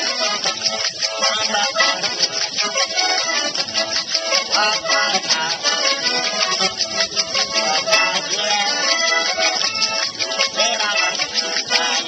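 Small button accordion playing a lively folk tune, with a fast, even shaker-like rattle keeping the beat.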